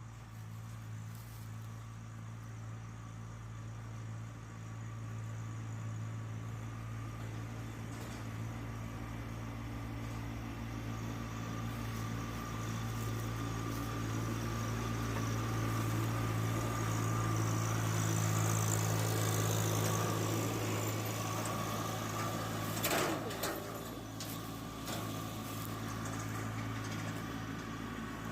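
A vehicle engine running steadily, getting louder toward the middle and easing off again. A short sharp clatter sounds about 23 seconds in.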